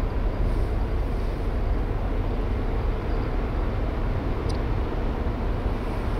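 Steady low rumble of the Isle of Inishmore ferry's engines as the ship departs, with a brief high squeak about four and a half seconds in.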